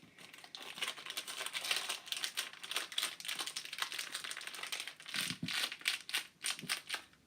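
Plastic packaging crinkling as it is handled, a quick irregular run of small crackles.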